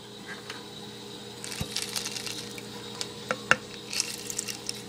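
Half a lime being worked on a plastic hand citrus juicer: wet squishing and rubbing with a few sharp plastic clicks, the juice tipped into the blender jar near the end.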